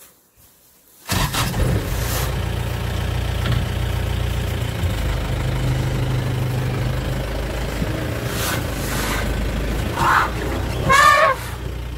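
Vehicle engine idling steadily; it starts abruptly about a second in. Near the end come two short calls, the second wavering up and down.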